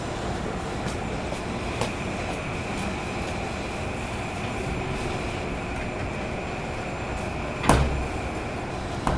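Inside a stopped Tobu commuter train car: a steady equipment hum with a faint high tone, broken by a sharp clunk near the end and a smaller knock just after it.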